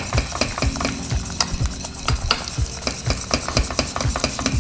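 Wire whisk stirring a thickening cheese cream sauce in a pot, its wires ticking quickly and unevenly against the pan.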